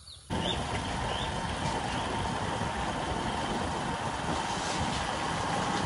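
Motorcycle being ridden along a wet lane: a steady rush of engine and road noise that starts abruptly about a third of a second in and stops with a cut near the end.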